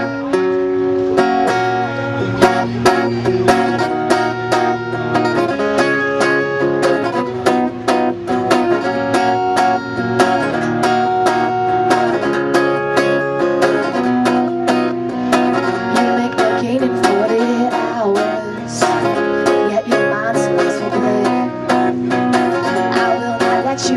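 Live band music led by plucked string instruments, an upbeat steady tune with no speech.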